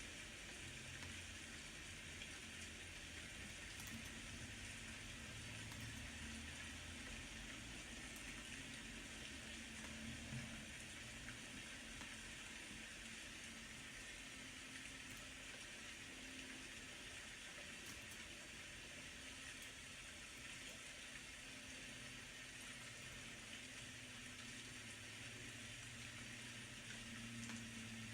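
Steady rain: a faint, even hiss, with a low hum underneath that swells slightly near the end.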